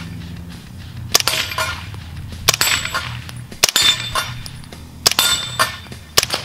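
D3-9SD integrally suppressed 9mm carbine firing five slow, aimed shots, each a muted report followed by the clang and ring of a hit on a 6-inch steel plate at 25 yards.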